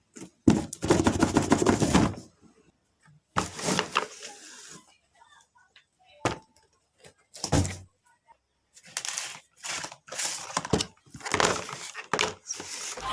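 Packaging being handled and opened: bursts of crackling and rustling, with a few knocks, the longest about half a second in and a quick run of bursts in the last few seconds.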